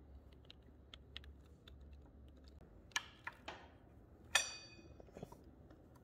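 Small clicks and scrapes of a motorcycle disc brake pad being worked into its caliper by hand, with a sharper metallic clink that rings briefly about four and a half seconds in.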